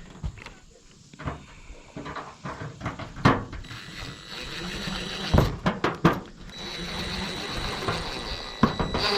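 Power drill driving a roofing screw into a metal roof panel. A few sharp knocks come first, then the drill runs in two stretches through the second half with a steady high whine.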